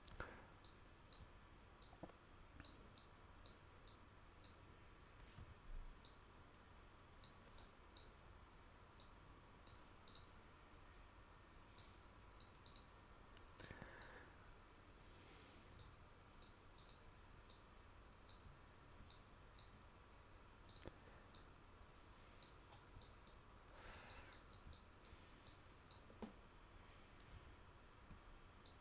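Faint computer mouse clicks, scattered irregularly, over near-silent room tone.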